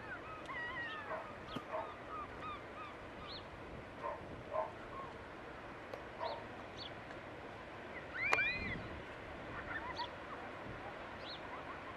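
Birds calling repeatedly: scattered short rising-and-falling calls, with one louder, longer arched call about eight seconds in, over a faint steady background rush.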